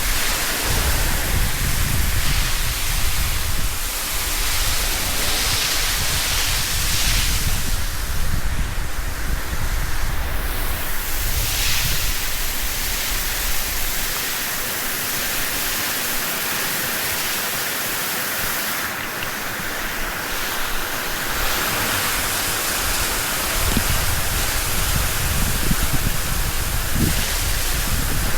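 Water from a high-pressure wash-down hose spraying onto a concrete dairy-shed floor, a steady rushing hiss of water striking and splashing.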